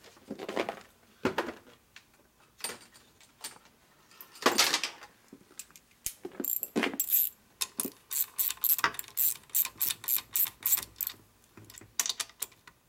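Metal tools and parts clinking a few times, then a hand ratchet clicking in a quick run, about four clicks a second. The bolts of an oil pump are being run in on a Harley-Davidson shovelhead engine case.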